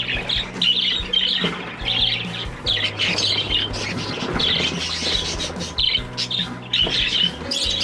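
A flock of small aviary birds chattering, with many short, quick squawking and chirping calls overlapping without a break.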